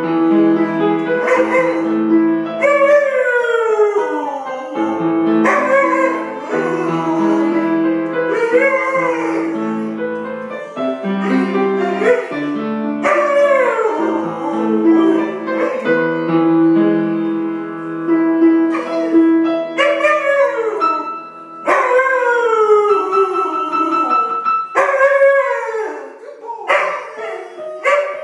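Afghan Hound howling along to music with long held chords, in repeated howls that rise and then slide down in pitch. The held chords stop about three quarters of the way through while the howling goes on.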